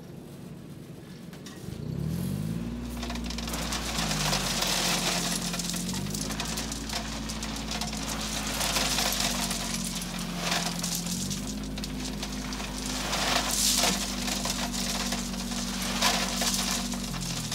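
Tracked mini dumper's small engine revving up about two seconds in and running on, its pitch shifting a few times as the bed tips, while a load of gravel rattles and pours out of the tipped bed in several surges.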